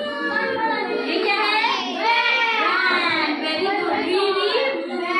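A class of children chanting together in unison in a sing-song voice, reciting phonic sounds.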